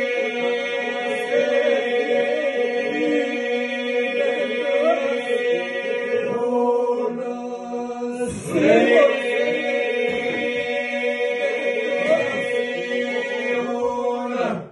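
Men singing an Albanian Lab polyphonic song: a group of voices holds a steady drone (iso) while solo voices carry and ornament the melody above it. A voice swells louder about eight and a half seconds in, and the singing stops abruptly at the very end.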